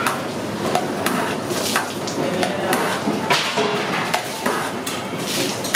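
Long metal spatula scraping and knocking against a large metal kadai as a big batch of brinjal fry is stirred, in irregular strokes.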